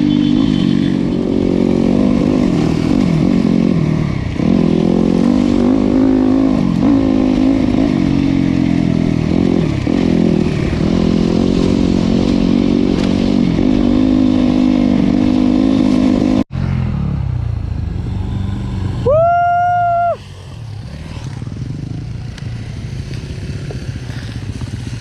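Motorcycle engine running under way, its pitch rising and falling with the throttle. After a sudden break about two-thirds of the way in, the engine is quieter and a horn sounds once for about a second.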